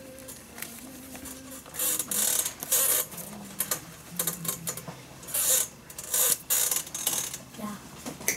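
Leather lace being pulled through the lace holes of a leather baseball glove (a Kubota Slugger hardball infielder's glove) during relacing: a string of short scraping swishes, each under half a second.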